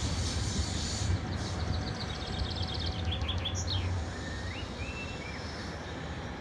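A steady low rumble that eases off about four seconds in, with a bird chirping over it, several quick chirps and short rising whistles in the middle.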